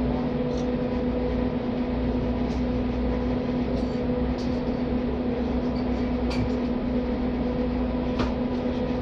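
Steady machine hum with a strong low tone that stays unchanged throughout, with a few faint light clicks over it.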